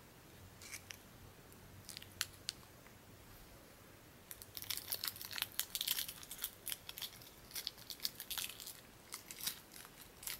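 Hi-Chew candy's plastic wrapper crinkling as it is unwrapped: a few scattered crackles at first, then dense, irregular crinkling from about four seconds in.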